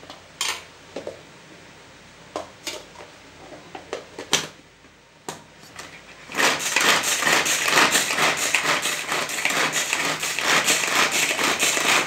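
A few sharp knocks and clicks as pieces go into a pull-cord manual food chopper and its plastic lid is fitted. Then, about six seconds in, a loud, fast ratcheting whir starts and goes on as the cord is pulled over and over, the spinning blades chopping onion and green chilli.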